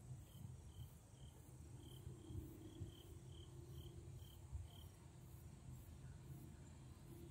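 Near silence: faint insects chirping in an even rhythm, a few chirps a second, with one series stopping about two-thirds of the way through, over a faint low rumble.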